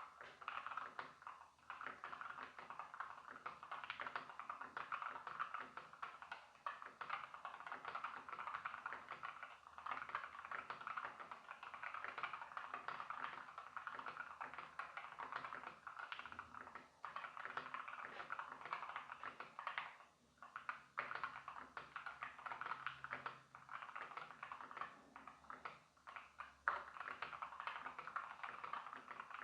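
Continuous fast typing on a Keychron K4 HE keyboard with Gateron Double-Rail Magnetic Nebula Hall-effect switches: a rapid, even clatter of keystrokes with brief pauses, one louder keystroke near the end.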